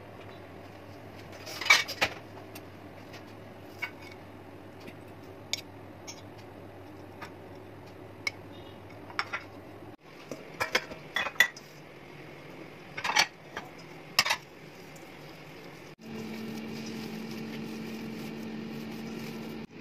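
Scattered clinks and knocks of kitchenware: a stainless steel mixing bowl and plates handled on a countertop, over a steady low hum.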